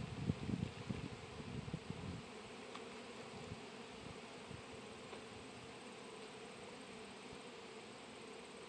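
Honey bees buzzing in a steady hum, with some soft handling noise in the first couple of seconds.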